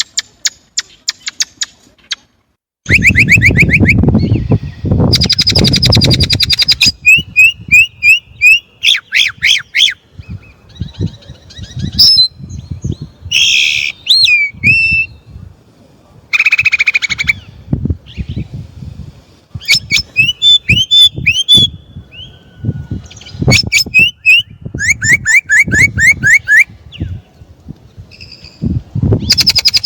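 Chinese blackbird singing close and loud: varied phrases of rapid repeated notes and trills, broken by short pauses, starting about three seconds in.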